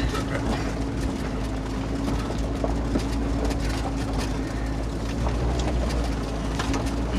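2020 Kia 4x4 crawling up a rocky dirt track in four-wheel drive: a steady low engine and drivetrain rumble with a constant hum, and tyres crunching over loose stones with scattered small knocks and rattles.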